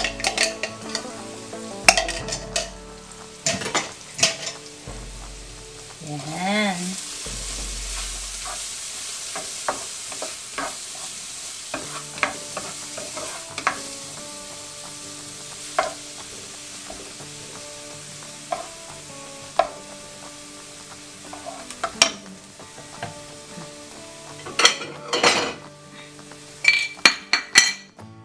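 Chopped garlic and onion sizzling in butter in a nonstick frying pan, stirred with a wooden spatula that scrapes and taps against the pan. The sizzle grows louder for several seconds about a quarter of the way in, and a quick run of taps comes near the end.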